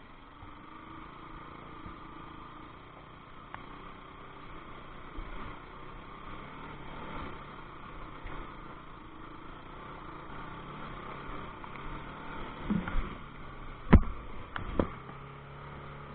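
Motorcycle running with a steady noise, broken by a few sharp knocks about thirteen and fifteen seconds in.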